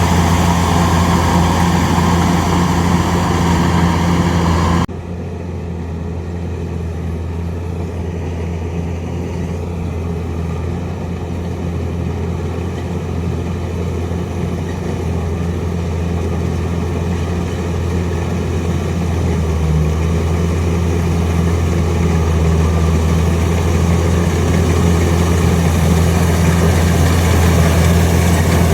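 Kubota DC-105X combine harvester's diesel engine running steadily under harvesting load, with a strong low hum. About five seconds in the sound drops suddenly and turns duller, then slowly grows louder again.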